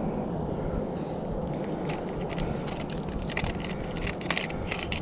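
Steady wind rumble on the microphone, with a run of small clicks and rattles from about a second and a half in as a freshly caught fish and the lure's hooks are handled.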